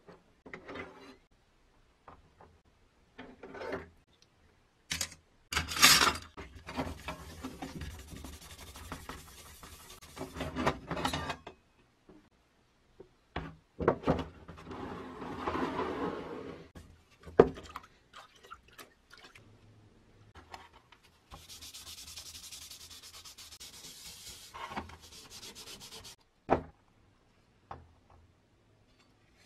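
Green abrasive scouring pad scrubbing a wet, rust-stained sheet-metal wheel guard from a bench grinder, in stretches of scratchy rubbing, with a few sharp knocks and clanks of the metal parts being handled.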